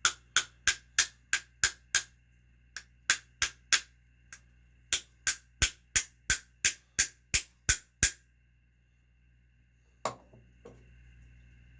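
Sharp metallic hammer taps on a nut threaded onto a nitro engine's crankshaft, driving the crank back to loosen a stuck collet. They come in quick runs of about three a second, with short pauses between, then two more near the end.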